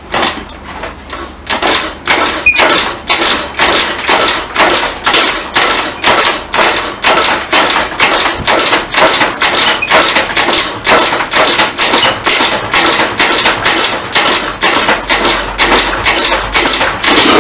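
Rapid, evenly spaced sharp knocks, about three a second, louder from about two seconds in.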